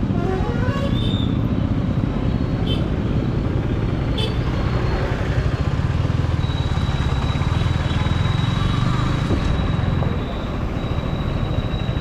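Yamaha R15 motorcycle's single-cylinder engine running as the bike rolls slowly through street traffic, with an engine note rising about a second in. Other vehicles and people's voices are heard around it.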